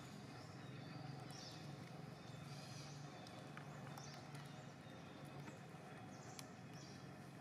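Faint high-pitched monkey squeals, short arched calls repeated about once a second, typical of a distressed young macaque, over a low steady hum with a few light clicks.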